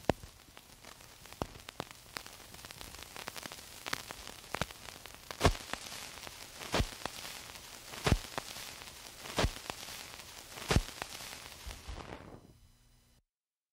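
Crackle and hiss like a record's surface noise, with a louder pop repeating about every 1.3 seconds. It fades out near the end.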